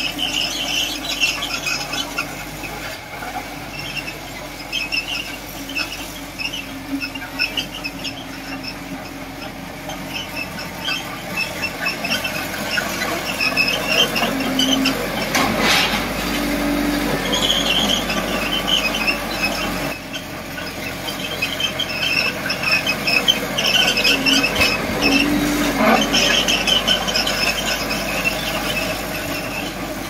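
Steel crawler tracks of a bulldozer squealing over and over as it moves, over the low running of its diesel engine. Two sharp clanks come about halfway through and again near the end.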